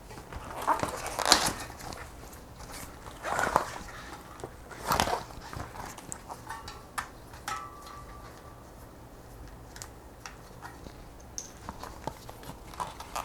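Punctured rubber bicycle inner tube being pulled out from inside the tyre by hand: irregular rubbing and rustling of rubber against tyre and rim, with a few louder scrapes in the first few seconds.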